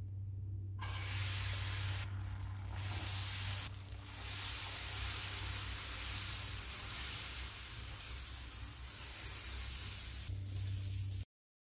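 Thick lentil-and-rice adai batter sizzling on a hot non-stick dosa pan as it is poured and spread with a steel ladle. The sizzle starts about a second in, dips briefly twice, and cuts off suddenly near the end, over a low steady hum.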